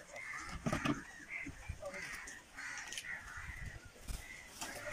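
Crows cawing over and over, with a few sharp knocks about a second in and again near the end.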